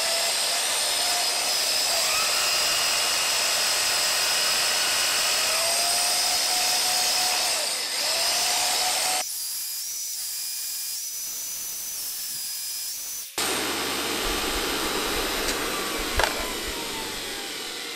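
Redi-Line 12-volt dynamotor, a DC motor spinning an AC generator, running with a whine under a heavy load, with a plugged-in power tool running off its output. The load is more than its single lead-acid battery can supply, so the output sags to about 90 volts. About nine seconds in, the lower part of the sound cuts out for about four seconds, then returns with its pitches sliding down.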